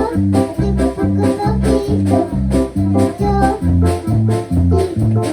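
Upbeat gospel music with a steady quick beat, bass and keyboard.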